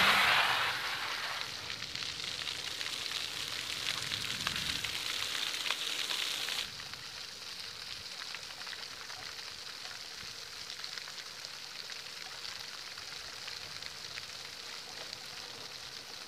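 Rushing tyre and air noise from an electric bike sweeping past close by on concrete, loudest at the very start. It then drops abruptly to a fainter, steady outdoor hiss about six and a half seconds in.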